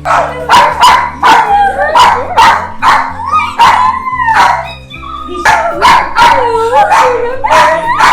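Dogs barking and yelping in quick succession, about two barks a second, some with rising and falling yelps, over background music with a steady bass line that starts at the beginning.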